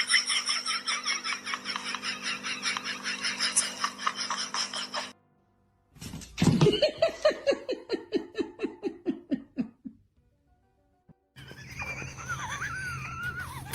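Laughter in quick repeated pulses, in two separate bursts split by a short silence; the second burst falls in pitch and trails away. Near the end, after another short silence, a wavering tone plays over a low steady hum.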